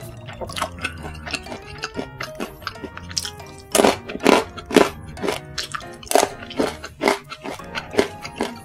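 Close-miked chewing of a mouthful of fried instant noodles with crispy basreng (fried fishball chips): a run of irregular crunches, loudest between about four and five seconds in and again around six to seven seconds. Background music plays underneath.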